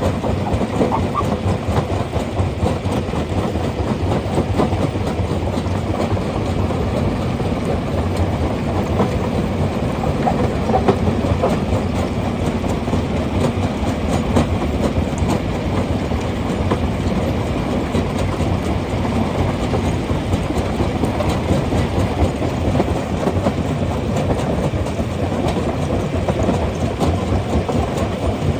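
Rock crusher running: a steady, heavy rumble with a continuous fast clatter of stone.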